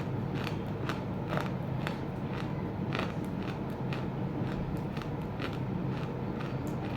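Roasted clay chunks crunched between the teeth: sharp, crisp crunches about twice a second at an even chewing pace, over a steady low hum.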